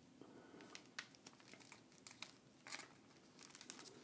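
Faint crinkling of cellophane being rolled by hand around a wooden dowel rod, with a few light ticks.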